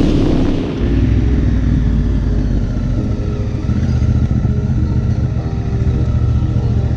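Motorcycle engine running steadily while riding, a continuous low drone, with wind hiss on the microphone fading away in the first second.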